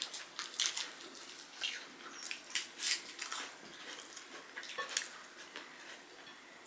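Two people eating rice and curry with their fingers: chewing, wet lip smacks and fingers working rice on the plates, heard as an irregular string of short clicks, the loudest about five seconds in.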